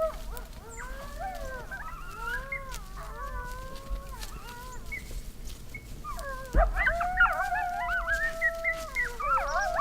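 A pack of coyotes howling and yipping, several wavering voices overlapping. A sharp knock comes about two-thirds of the way through, after which the chorus grows louder.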